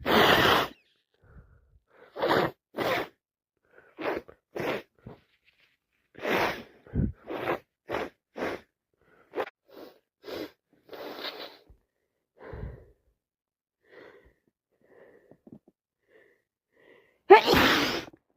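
A person sneezing again and again, with short sniffs and breaths between the sneezes; a loud sneeze comes right at the start and the loudest one near the end.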